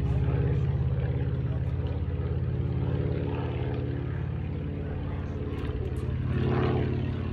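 Boeing Stearman biplane's radial engine droning steadily in flight, with a fast pulsing beat. It swells louder near the end.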